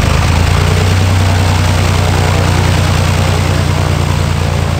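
GippsAero GA8-TC320 Airvan's turbocharged six-cylinder Lycoming piston engine and propeller idling steadily on the ground just after starting, with a strong, even low hum.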